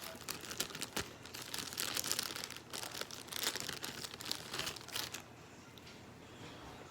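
Crinkling of plastic packaging and small handling clicks, irregular and fairly quiet, stopping about five seconds in.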